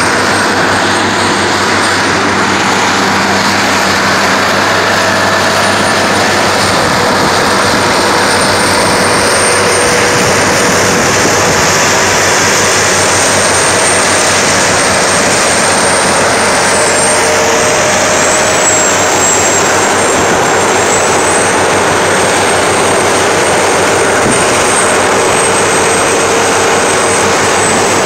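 Seismic vibrator (vibroseis) trucks driving past in convoy, their big diesel engines running loud and steady, with a thin high whine over the engine noise.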